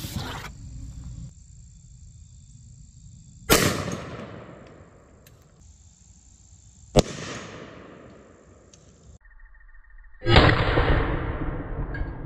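20-gauge shotgun loaded with #2 buckshot firing: three sharp blasts, each trailing off in an echo, about three and a half seconds apart, the last the longest.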